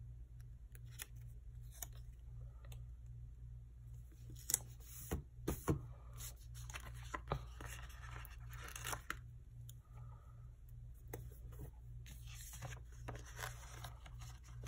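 Paper planner stickers being handled and peeled from their backing sheet: faint rustling and peeling with scattered sharp ticks, a cluster of them about five seconds in. A steady low hum runs underneath.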